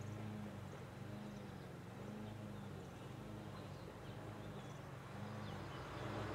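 Low, steady engine hum from a distant vehicle or machine, pulsing about once a second, with faint small-bird chirps above it; the noise swells near the end as something comes closer.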